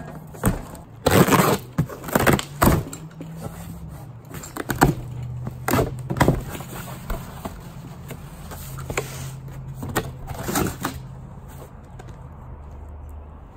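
A cardboard moving box being opened and unpacked: packing tape slit with a box cutter, flaps pulled back and the contents rummaged, giving a string of irregular sharp crackles and knocks. A steady low hum runs underneath.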